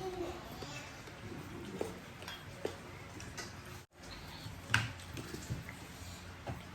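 Quiet room tone with a few light clicks and taps of tableware during a meal, one sharper click a little before the end.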